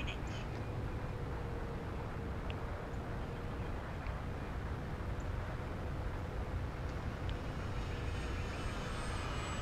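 Wind rushing over the onboard camera of an E-flite Mustang 1.2 m electric RC plane in flight, with the faint steady whine of its electric motor and propeller. Near the end the whine grows stronger and climbs in pitch.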